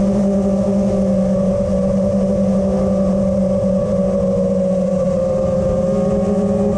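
Five-inch FPV quadcopter's XING 2208 2450KV brushless motors spinning T-Motor 5143 tri-blade props, a steady whine at cruising throttle, heard through the onboard action camera's microphone with a rumble of wind beneath it.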